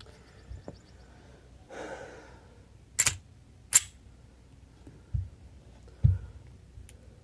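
A Taurus PT940 pistol being handled: two sharp metallic clicks less than a second apart, then two dull low thumps.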